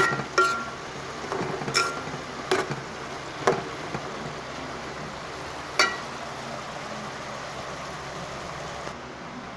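A metal utensil clinking and knocking against a cooking pan while stirring vegetables: a handful of sharp, briefly ringing strikes, the last about six seconds in, over a steady background hiss.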